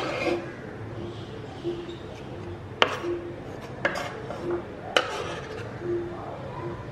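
Three light, sharp clicks about a second apart, like a hand or ring tapping the ceramic mixing bowl while the salad filling is handled, over faint room noise with a low hum that comes and goes.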